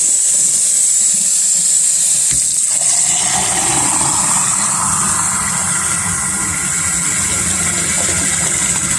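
Water jetting from a hose into water, a loud, steady rushing with bubbling, used to imitate a rocket's roar. About three seconds in the rush grows fuller in its middle range.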